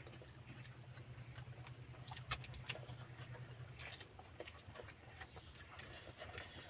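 Faint eating sounds: instant noodles slurped and chewed by hand, with scattered short mouth clicks and smacks, one a little louder about two seconds in.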